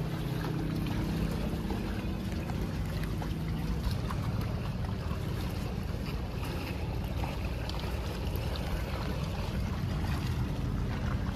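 Seaside ambience: a low, steady drone from a distant boat engine, with wind on the microphone and water lapping at the rocky shore.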